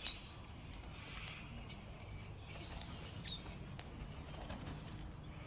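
Sulphur-crested cockatoos heard faintly: a few soft short chirps and small clicks over a low steady background rumble, with no loud screech.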